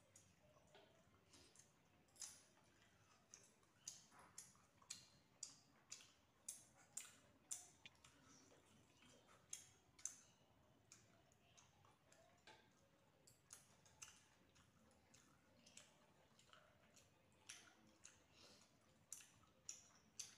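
Faint eating sounds: sharp, wet clicks and smacks at an irregular pace of about one or two a second, from two people chewing rice and chicken curry and working it with their fingers on metal plates.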